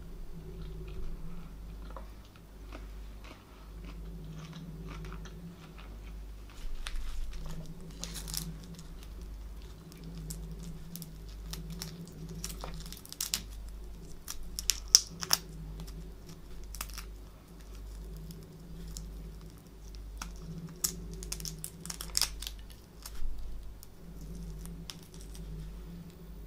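Shells of boiled prawns crackling and tearing as they are peeled by hand close to the microphone, in irregular clusters of small cracks with a few sharper snaps, the sharpest about halfway through. A low steady hum runs underneath.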